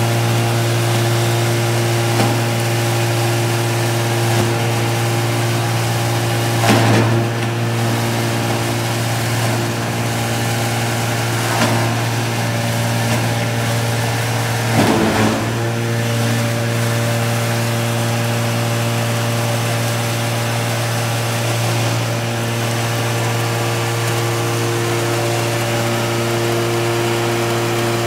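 Tub-type straw and hay chopper, driven by an electric motor, running steadily with a constant low hum while it shreds straw. A few brief louder surges come through, about 7 and 15 seconds in.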